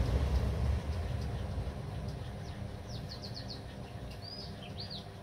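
Low rumble that fades away over the first couple of seconds, then a small bird chirping: a quick run of about five short falling notes in the middle, and two or three rising-and-falling notes near the end.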